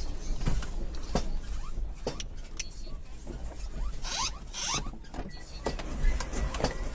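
Household objects rattling and knocking irregularly as a room shakes in an earthquake, over a low rumble, with a brief scraping squeal about four seconds in.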